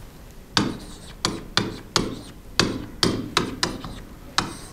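Writing strokes on a board: about a dozen sharp taps at irregular spacing, two or three a second, as the letters are written.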